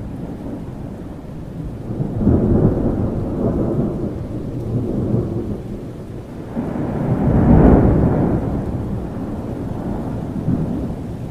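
Thunder rolling over steady rain: a long rumble swells about two seconds in, and a louder one builds and peaks near the eighth second before fading.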